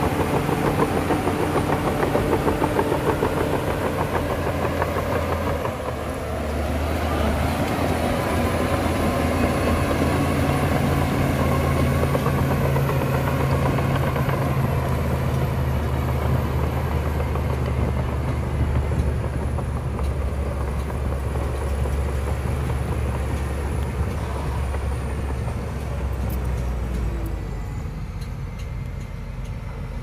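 Shantui crawler bulldozer's diesel engine running steadily under load as the dozer pushes soil with its blade, with a brief dip in level about six seconds in.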